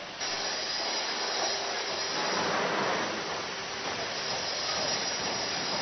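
Steady mechanical hissing noise with a thin high squeal, switching on suddenly at the start and cutting off suddenly at the end.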